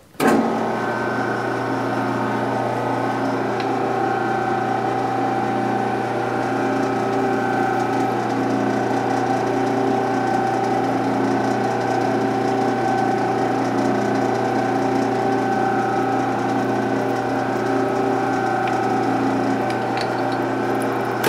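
Metal lathe switching on about a quarter second in and running steadily at low speed, with its motor and gear train humming, while a drill in the tailstock chuck bores a pilot hole in the steel part spinning in the chuck.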